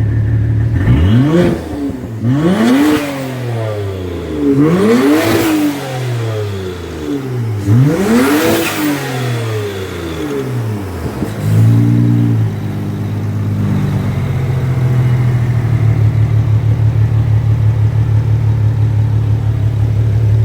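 BMW N54 twin-turbo inline-six revved four times, each rev rising and falling back, then settling to an idle with an even, pulsing beat. The engine is misfiring, with three cylinders low on compression.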